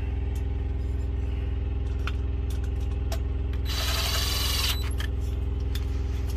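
Diesel truck engine idling steadily as a low hum, with light clicks of tools and parts being handled and a brief rustle about four seconds in.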